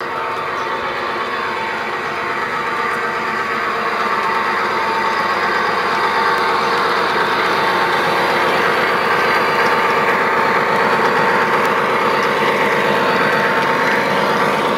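Piko G-scale BR 218 model diesel locomotive running on a garden railway, a steady engine-like running sound that grows gradually louder as the train comes closer.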